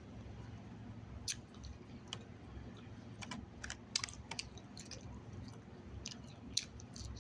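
Chewing a mouthful of chicken salad close up, with irregular small crunches and wet mouth clicks.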